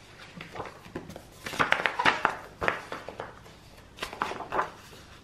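Paper pages of a spiral-bound planner being flipped through in quick succession, rustling and flapping. The flipping comes in clusters, loudest about a second and a half in and again around four seconds.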